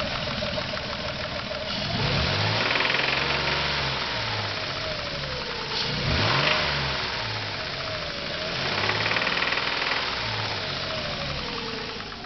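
Ford Taurus SHO V6 engine revved up and back down several times, with a knock that comes in above about 2,500 rpm. The knock started after the car was driven very hard, about 5,000 miles after the rod bearings were replaced.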